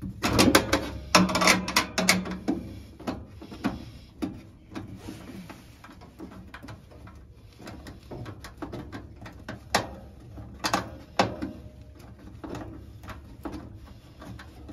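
Hands working on a furnace's inducer motor and sheet-metal cabinet: a burst of metal rattling and clicking in the first couple of seconds, then scattered clicks and knocks.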